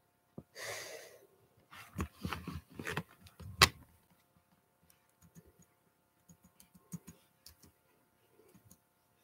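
Handling noise as the camera is moved: a brief rustle, then a run of knocks and clicks, the loudest about three and a half seconds in, followed by light scattered taps.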